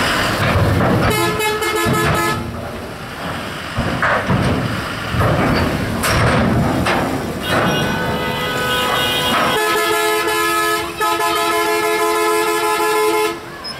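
Vehicle horn honking: a short honk about a second in, then a long blast in the second half with a brief break in it, over the rumble of a heavy truck's engine as it drives up onto the ferry.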